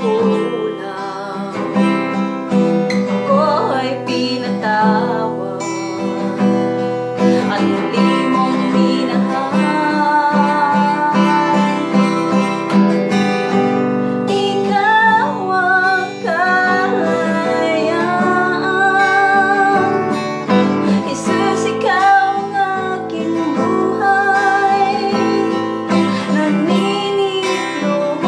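A woman singing a worship song in Tagalog, accompanying herself on a strummed acoustic guitar.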